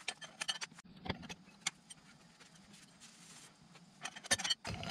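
Harley-Davidson Shovelhead FLH clutch plates clinking and scraping against the basket and hub studs as they are fitted one after another, sped up: scattered short metallic clicks with a quick cluster of them near the end.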